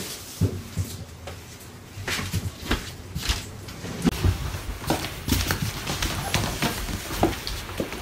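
Irregular knocks, thumps and brief scrapes of household things being handled and moved about, with footsteps on a wooden floor.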